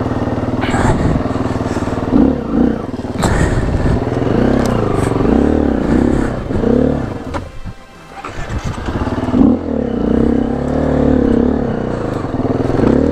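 Four-stroke dirt bike engine running under changing throttle, its pitch rising and falling over and over. It drops away briefly a little past halfway, then picks up again.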